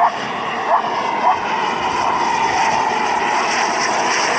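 Small gas-turbine engine of a radio-controlled F-16 jet model in flight: a steady rushing jet noise that grows louder as the model comes closer, with a thin high whine slowly falling in pitch. Three short blips sound in the first second and a half.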